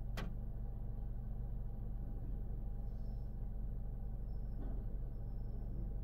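Steady low rumble of a D&S IQ soft-touch car wash running, heard from inside the car's cabin as the spinning brushes and water spray work over the car. A sharp click comes just after the start, and a fainter knock comes about three-quarters of the way through.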